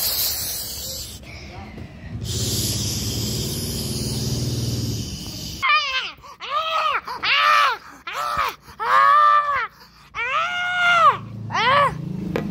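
A boy screaming for fun: after a few seconds of noisy rasping, about six short, shrill screams that each rise and fall in pitch.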